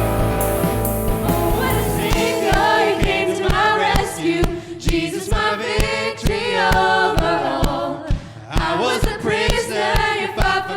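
Live worship band music with a group of singers: held chords for about the first two seconds, then a steady drum beat comes in under the singing.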